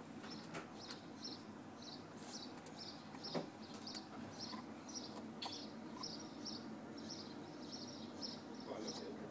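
High, short chirps repeating about twice a second, with a few sharp crunches of an animal biting into a carrot; the loudest crunch comes about a third of the way in.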